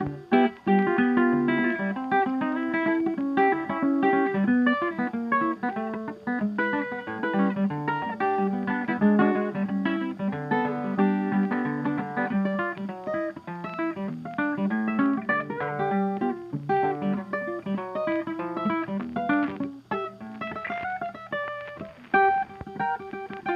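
Background guitar music: quick runs of plucked notes played continuously.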